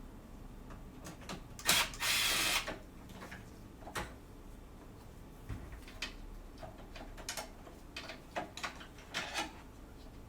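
Screws being taken out of a DJ player's chassis: a knock, then a short whirr of about half a second, about two seconds in, followed by scattered small metallic clicks and taps as the screws and parts are handled.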